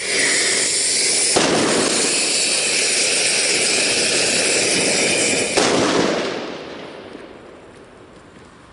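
A firework going off close by: a sudden, loud, continuous hiss that runs for about six seconds, changes about a second and a half in, ends with a sharp burst and then dies away.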